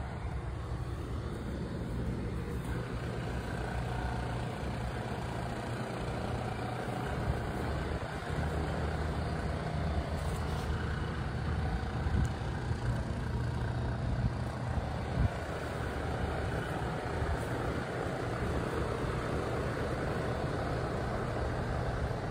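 An engine running steadily: a low, even drone under a broad rush of noise.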